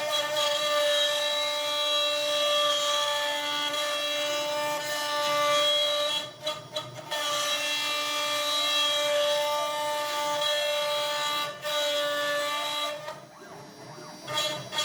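CNC router's quarter-inch ball end mill cutting cherry with a loud, steady, high-pitched whine ringing with overtones: the chatter of a feed rate the maker judges too high. The whine breaks off briefly about six seconds in and again near the end.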